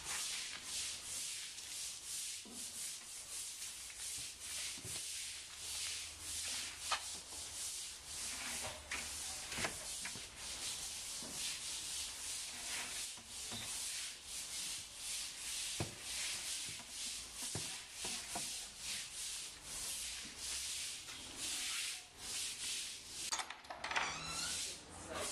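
Scratchy rubbing or scraping strokes, repeated about twice a second at an even pace.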